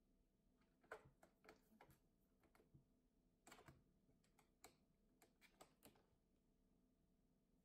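Faint scattered clicks and scuffs of cats' paws and claws on a corrugated cardboard scratcher, a dozen or so light taps that stop about six seconds in.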